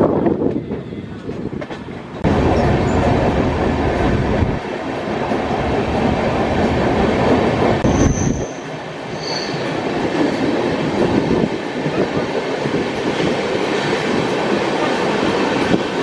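Passenger train running along the rails, heard from an open coach door: a steady rumble of wheels on track mixed with rushing air. The noise steps up suddenly about two seconds in, and a couple of brief high squeaks come through about halfway.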